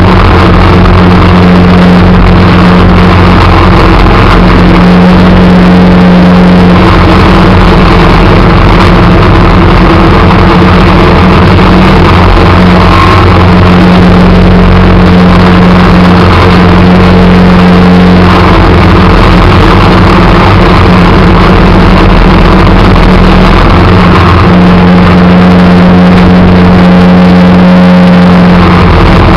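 Engine of a small snow-plowing vehicle running loudly and steadily while pushing snow, its note weakening and returning a few times as the load changes.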